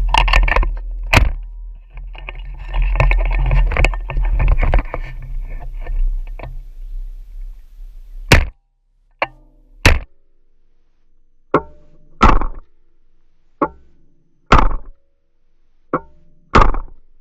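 9mm SIG MPX carbine firing. For the first several seconds there is a dense, loud clatter of noise and sharp cracks. From about eight seconds in come separate single shots, mostly in pairs about half a second apart, each with a short echo.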